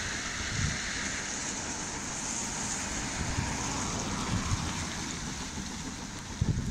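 Wind buffeting the microphone in irregular low gusts, over a steady rushing hiss of wind and rain. The gusts are strongest near the end.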